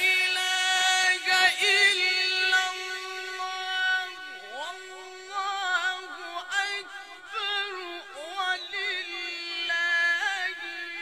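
A man's voice reciting the Quran in a melodic, chanted style. He holds one long sustained note, then winds it through ornamented turns and glides that rise and fall.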